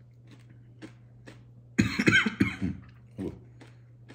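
A man coughing: faint mouth clicks of chewing, then a loud burst of coughing about two seconds in and one shorter cough a second later.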